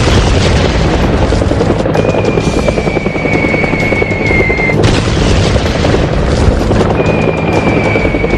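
Loud background music with a dense, heavy texture. A high whistling tone that falls slightly comes in and cuts off, recurring about every five seconds.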